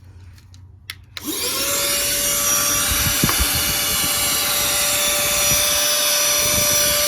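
Handheld cordless vacuum cleaner switched on with a click, its motor spinning up in a quick rising whine to a steady high hum with rushing air as it sucks dust and dirt. A light knock comes about three seconds in.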